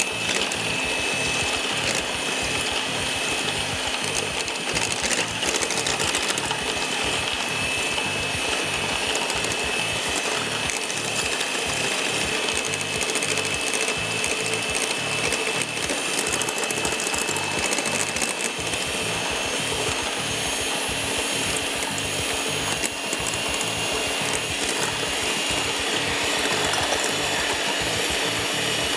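Anex electric hand mixer running steadily, its twin beaters whisking egg yolks and milk in a glass bowl, with a steady high motor whine.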